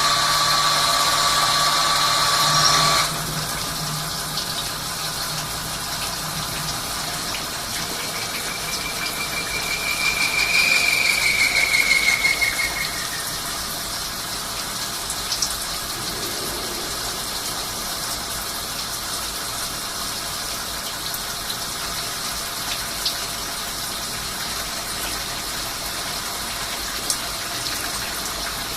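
Swiss-type CNC lathe at work. A steady multi-tone machine whine stops abruptly about three seconds in, leaving a steady rushing hiss of flowing coolant. From about eight to thirteen seconds a single high tone sounds, louder, rising slightly and then falling away, with a few light clicks later on.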